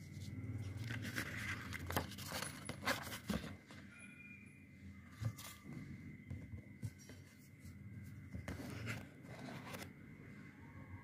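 Cardboard packaging handled by hand: scraping and rustling as a box flap is lifted and a printed card is pulled out, busiest about one to three and a half seconds in and again around nine seconds. A faint steady high tone runs underneath.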